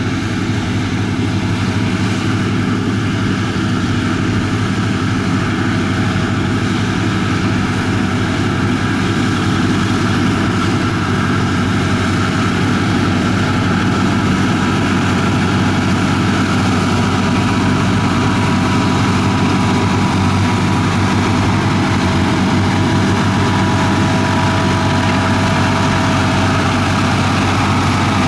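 Komatsu bulldozer's diesel engine running steadily under a heavy low drone, a little louder from about ten seconds in, with a faint high whine joining in the second half.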